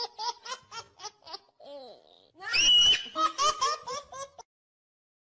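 A young child laughing hard in quick runs of 'ha-ha-ha' pulses, about six a second, with a very high squeal opening the second run; the laughing stops abruptly a little over four seconds in.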